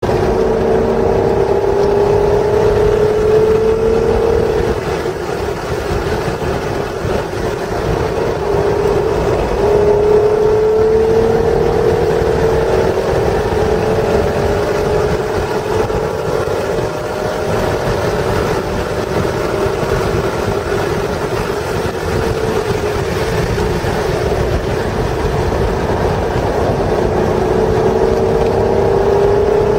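1996 Acura NSX's 3.0-litre V6 engine driven hard from inside the cabin: its note climbs in pitch several times as the car accelerates and falls back as it slows for corners.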